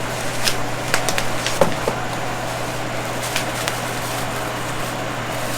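A few light clicks and knocks of small metal parts being handled, mostly in the first two seconds and twice more near the middle, over a steady low hum.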